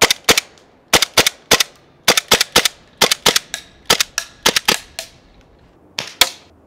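A Raven gas-powered airsoft pistol firing a rapid string of sharp shots in quick groups, about three a second. There is a pause of about a second near the end, then two more shots.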